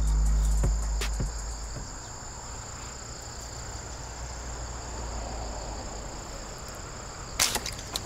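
Background music fades out in the first second or two, leaving crickets chirping steadily. About seven seconds in, a sharp snap: a slingshot loosing a fishing dart at a carp, followed by a couple of small clicks.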